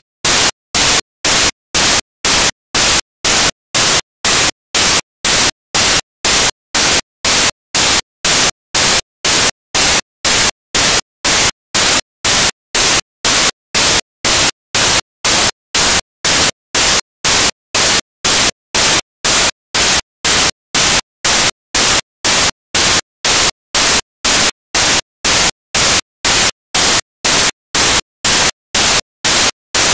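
Loud bursts of white-noise static switching on and off about twice a second, evenly and without a break: a digital audio fault in the dashcam recording rather than any sound from the street.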